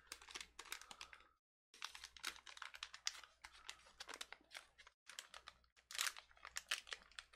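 Faint, irregular crinkling and small clicks of a plastic MRE drink-mix pouch being handled and opened.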